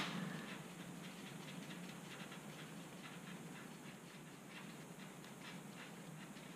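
Faint light ticks and rubbing as a gloved hand turns the oil drain plug out of a Yamaha XJ6's sump, over a low steady hiss.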